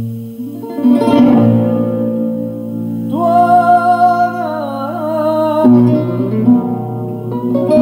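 Music with guitar and singing, played back from a cassette on tape B of a Marantz SD515 double cassette deck through the speakers. It starts abruptly out of silence, and a long held, wavering vocal note comes in about three seconds in.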